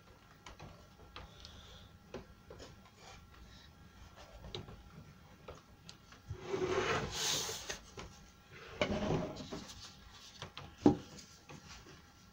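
Kerfed plywood being bent and slid around a curved wooden former: wood rubbing and scraping, with two longer scraping passes about halfway through and small taps throughout. A sharp wooden knock near the end is the loudest sound.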